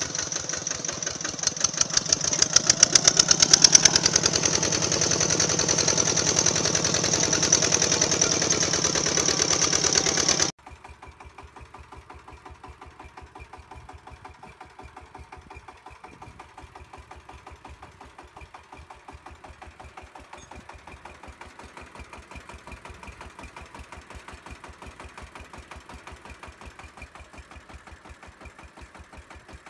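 Small motor of a homemade RC tractor's miniature single-cylinder engine unit running with a steady, rapid, even knocking. About ten seconds in the sound drops abruptly and becomes much quieter, the same even knocking going on.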